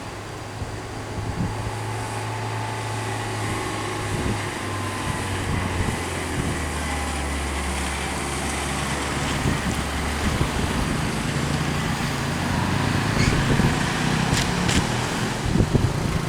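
A heavy vehicle's engine running with a steady low drone, growing gradually louder toward the end, with a few sharp ticks near the end.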